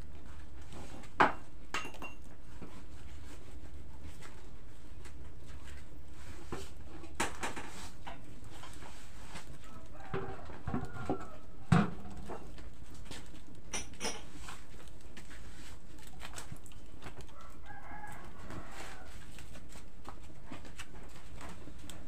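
Chickens clucking and a rooster crowing, over a steady low background, with a few sharp knocks of pots and utensils at the wood-fired stove, the loudest about twelve seconds in.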